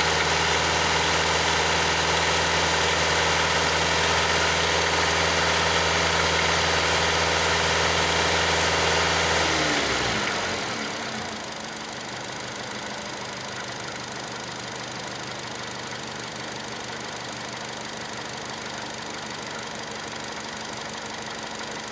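Honda JF11E engine held at raised revs, then about ten seconds in the revs fall away and it settles to a steady idle. It is being checked for a noise its owner calls a shuffle, a squeak and a click.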